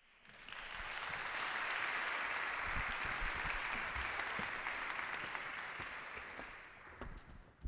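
Audience applauding. It swells over the first second, holds steady, then dies away over the last second or two.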